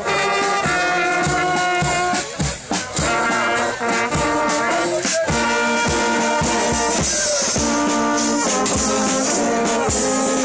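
Marching brass band playing: tubas and trumpets sounding held chords over a steady bass drum beat.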